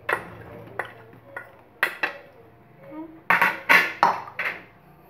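A plate and utensils clink and knock against a pan as paneer cubes are tipped into the simmering noodles. There are a few light clicks at first, then a louder run of clattering knocks about three and a half seconds in.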